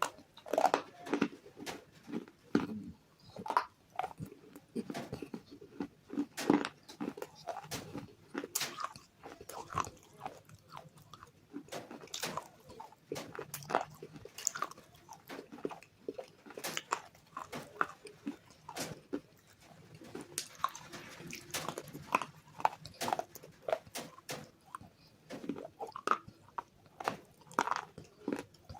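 Close-miked biting and chewing of hard, brittle clay bars coated in white chalk paste: a dense, irregular run of sharp crunches and crackles with softer chewing between them.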